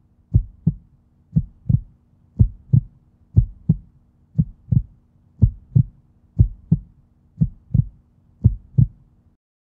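Heartbeat sound effect: deep double thumps (lub-dub), about one beat a second, over a faint low hum, stopping shortly before the end.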